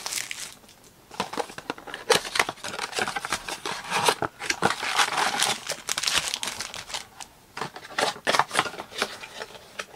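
Plastic shrink wrap and a cardboard trading-card blaster box crinkling and tearing under the hands as the box is unwrapped and opened, in quick irregular bursts.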